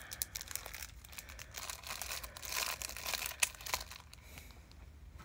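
Plastic blister packaging of a Pokémon trading-card pack crinkling and crackling as it is handled: a run of small, quick crackles that dies away about four seconds in.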